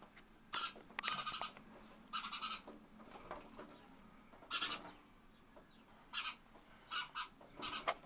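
A small trapped bird giving short, harsh calls in repeated bursts, about seven in all.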